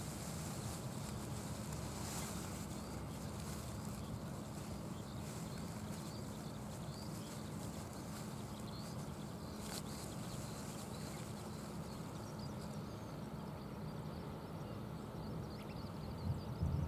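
Steady outdoor ambience: a low rumble under an even hiss, with faint high chirps of small birds in the first half. There is a single sharp click about ten seconds in, and low bumps near the end.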